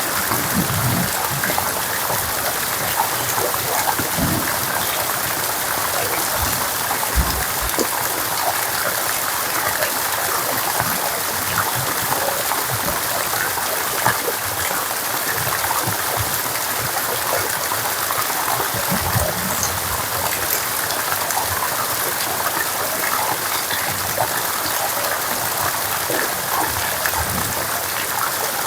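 Steady rain falling, with a dense scatter of small drop impacts over running water.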